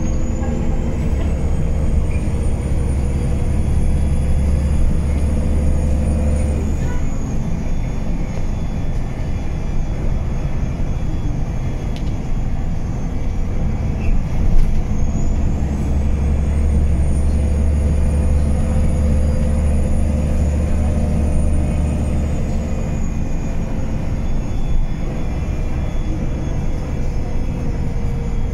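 Irisbus Crossway 12 LE city bus's diesel engine and drivetrain heard from inside the passenger cabin while driving. The bus pulls twice under load, each time with a deep drone and a high whine that rises, holds and then falls away as it eases off. A single knock comes about halfway through.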